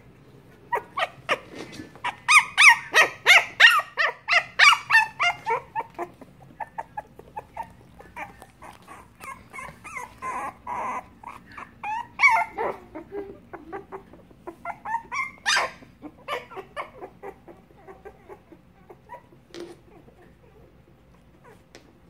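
Young Huskimo and Teddy Bear puppies crying in short, repeated high cries: a fast, loud run of them a couple of seconds in, then scattered cries, with a louder one about fifteen seconds in, tailing off near the end.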